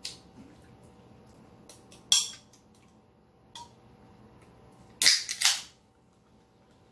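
Carbonated drink can being opened: a sharp snap about two seconds in, then two short loud hisses just after five seconds as the pull tab cracks the can open.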